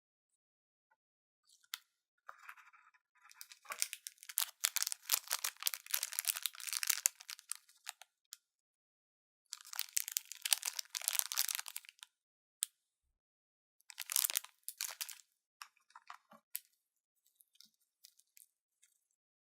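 Dry, crisp crunching and crackling from the choco-cracker kit, in three bursts: a long one of about four seconds, then one of about two seconds, then a short one.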